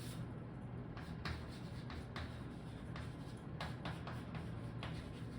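Handwriting: a run of short, irregular strokes as an equation is written out.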